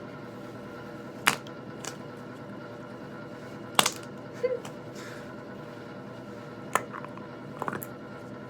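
Noise putty worked with the fingers in its tub, giving about six short, scattered sticky pops and clicks, with one brief squeaky fart-like blip about four and a half seconds in.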